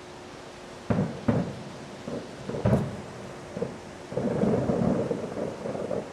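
Distant aerial fireworks exploding: three separate booms about a second in, just after, and near three seconds, then a dense run of overlapping bursts and crackle from about four seconds in.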